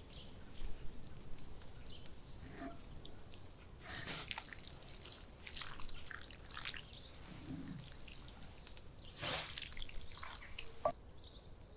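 Spaghetti being tossed and stirred through a creamy sauce in a cast iron pan: irregular soft wet squelches with a few sharper clicks of the utensil.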